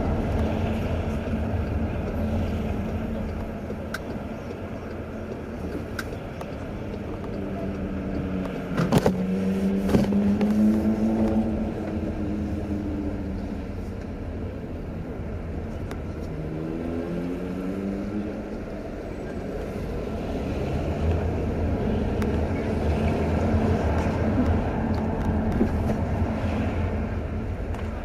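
Car engine and road noise heard from inside the cabin while driving through city traffic. The engine note rises as the car pulls away about a third of the way in and again a few seconds later, with a couple of sharp knocks around the first rise.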